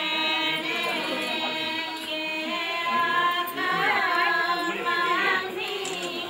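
Music with long held notes and a singing voice that wavers through the middle.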